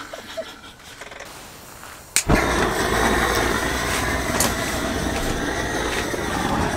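Faint background for about two seconds, then a click and a sudden steady rumbling noise with hiss that carries on.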